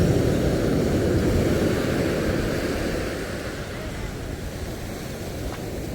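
Sea surf washing on the shore, with wind buffeting the microphone. The rush is loudest in the first half and eases after about three seconds.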